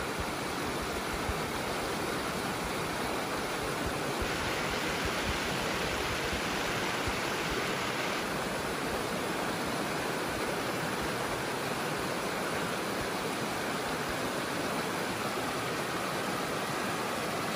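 Steady rush of river water tumbling over rocks in a shallow riffle, briefly brighter and hissier for a few seconds about four seconds in.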